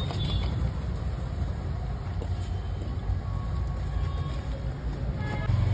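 Steady low rumble of outdoor street background noise, typical of passing traffic, with a few faint clicks.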